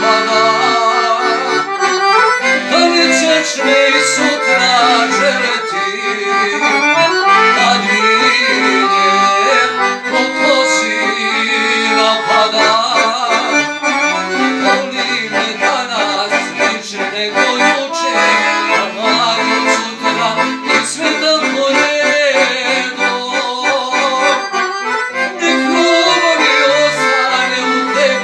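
Guerrini piano accordion playing a folk-song melody in quick runs of notes, with a man's singing voice heard near the start and near the end.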